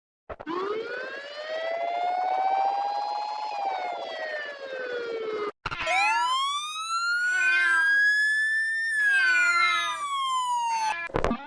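Police car siren sound effect played in altered variations. First comes one slow wail that rises and then falls, cut off about halfway. Then a higher-pitched rise and fall follows, with a pulsing lower tone under it, and ends in a brief clash of overlapping tones.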